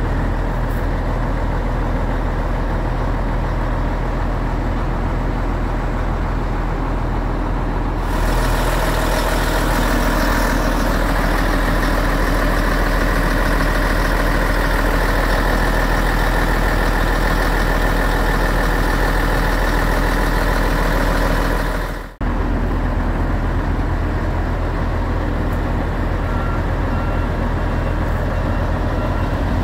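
The Komatsu PC750 excavator's SAA6D140E-3 six-cylinder diesel engine idling steadily. About eight seconds in it becomes louder and brighter, with more fan and air hiss, heard close to the open engine compartment. It cuts out for an instant a little past twenty seconds, then carries on at the duller level.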